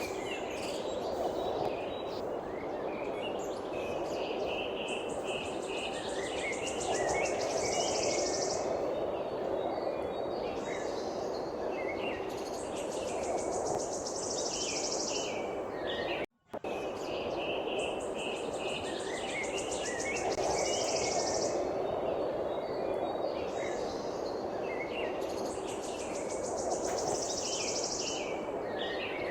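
Birds chirping and twittering over a steady background hiss, with insects giving a high, rapidly pulsing buzz in bursts of a second or two. About sixteen seconds in the sound cuts out for a moment, and the same passage of calls then seems to play again.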